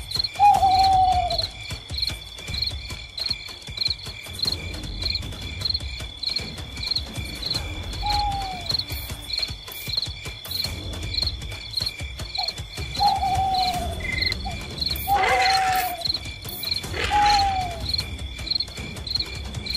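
Crickets chirping in a steady, rapid pulse, with about five drawn-out falling calls from another night animal scattered through.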